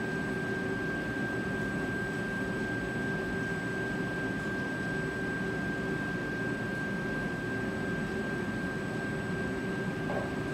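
Steady machinery hum of a commercial kitchen, with a constant high-pitched whine over an even rushing noise.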